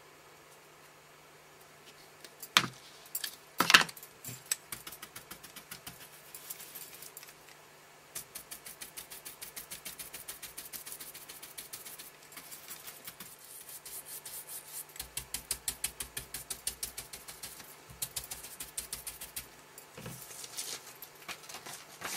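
An ink duster brush dabbing Distress ink onto card through a paper mask: a long run of quick, light taps, several a second. A couple of louder knocks come a few seconds in.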